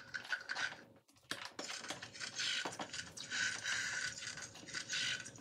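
Recorded crunching, chewing sounds from the Radio Flyer Blaze interactive riding horse, set off by a toy carrot held to its mouth. They come in short choppy bursts, with a brief pause about a second in.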